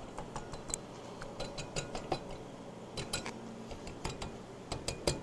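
Light, irregular metallic clicks and clinks: a screwdriver and the piston rings ticking against the cylinder block of a 1974 Honda CB350F as the rings are compressed and eased into the bores.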